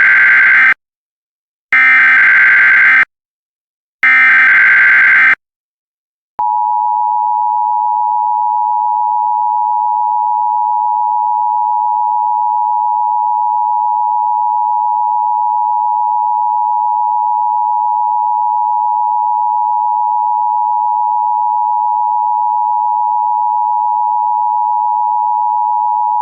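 Emergency Alert System SAME header: three short bursts of screeching digital data, about a second apart. From about six seconds in, the EAS two-tone attention signal follows as a steady, loud dual tone that holds unchanged for about twenty seconds.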